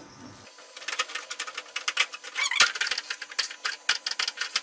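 Slotted spatula scraping and clacking against a non-stick frying pan as it mixes raw egg into a sticky date paste: quick, irregular strokes, several a second, with one sharper click partway through.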